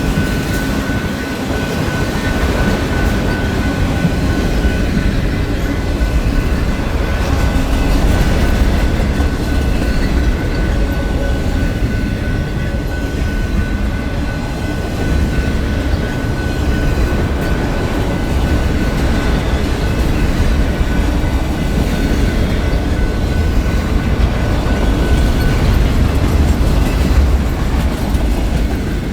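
Freight cars of a Canadian Pacific intermodal and auto rack train rolling past, a steady heavy rumble with wheels clacking over the rail joints. A thin steady high whine runs alongside and stops near the end.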